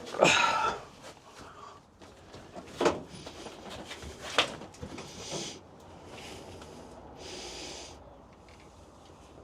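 A man breathing hard, with a run of heavy exhaled breaths, as he strains to shift a heavy motorcycle by hand. A loud scuffing noise comes right at the start and two sharp knocks follow a few seconds later.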